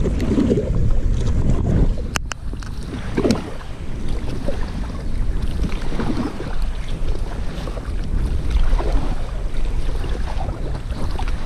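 Strong wind buffeting the microphone in a steady low rumble while an inflatable kayak is paddled, with a soft swell of paddle splash every two to three seconds. A single sharp click about two seconds in.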